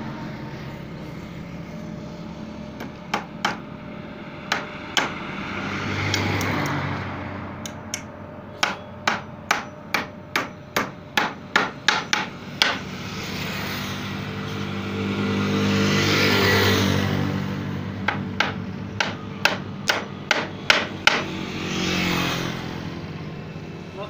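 Claw hammer driving nails into the corner joints of a wooden stand frame of kikar and teak wood: a few separate blows, then a quick run of about three blows a second, and another run near the end. An engine hum rises and falls in the background between the runs.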